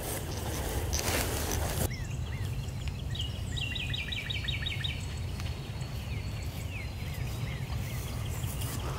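A bird calling: a quick run of about eight descending chirps a little past the middle, with a few single chirps around it. A rustling noise runs for the first two seconds and stops abruptly, and a steady low rumble, likely wind on the microphone, lies underneath.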